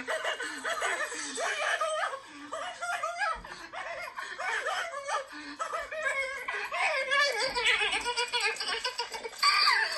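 A man laughing, on and off, with a louder burst near the end.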